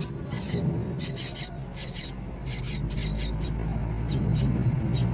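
Myna nestlings' begging calls: short, very high, squeaky cheeps in quick bursts, several a second, with brief gaps, over a steady low rumble.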